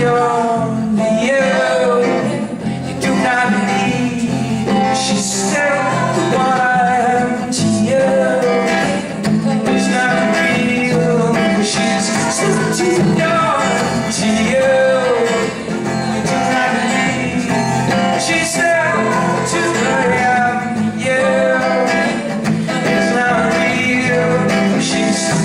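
Live singing with acoustic guitar accompaniment, a steady song.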